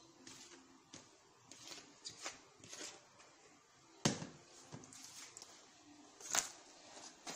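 A spoon knocking and scraping against plastic bowls as flour is stirred into cooked groundnuts: a few separate light knocks, the loudest about four seconds in and another a little after six seconds.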